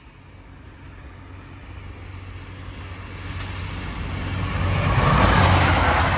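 TransPennine Express train approaching and passing the platform at speed, its rumble and wheel-on-rail noise swelling steadily and loudest as it goes by near the end.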